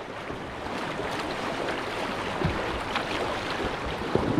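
Steady rushing of whitewater river current, with a couple of short faint knocks about two and a half and three seconds in.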